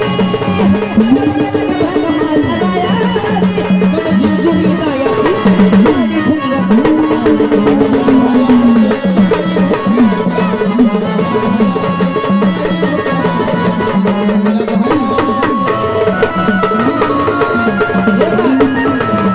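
Marathi gondhal folk music: hand drums keep a rhythm under a winding melodic line and steady held notes.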